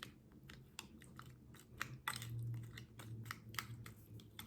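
Faint eating sounds: soup with crackers being chewed, with many small crunches and clicks. A low hum runs through the middle.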